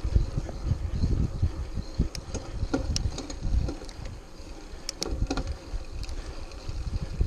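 Mountain bike rolling along a dirt singletrack: a low, uneven rumble of knobby tyres on the trail and wind on the microphone, with scattered rattles and clicks from the bike over bumps.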